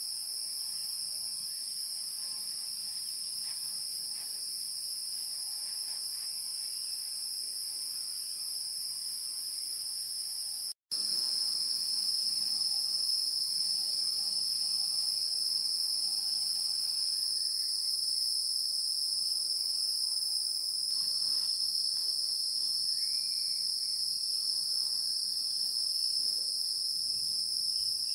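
A steady, high-pitched chorus of insects, unbroken apart from a brief dropout about eleven seconds in, after which it carries on slightly louder.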